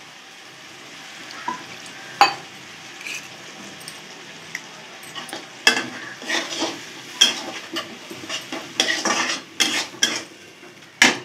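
Metal spatula scraping and stirring spice masala around a metal kadhai over a steady sizzle of frying oil, as the spices are fried in. The stirring strokes are sparse at first and come one or two a second from about halfway, with a sharp knock of spatula on pan near the end.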